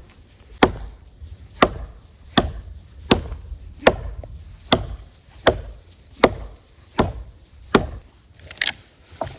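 Wood from a snow-felled tree being chopped by hand with a bladed tool: a steady rhythm of sharp chopping strikes, about one every three-quarters of a second, around a dozen in all.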